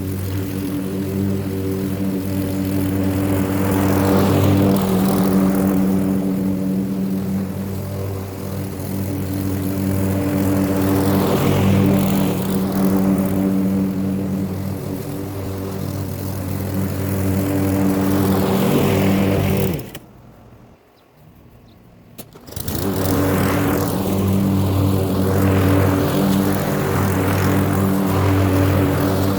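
Gas lawn mower engine running steadily while cutting grass, growing louder and softer as it moves about. It cuts out for about two seconds past the middle, then runs on.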